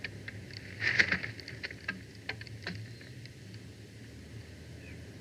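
Dry nest sticks crackling and snapping as a bald eagle works them in its nest. A dense burst of cracks comes about a second in, followed by scattered single clicks over the next two seconds, then it goes quiet.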